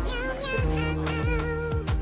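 Background music: a wavering melody with a kick drum beating about twice a second.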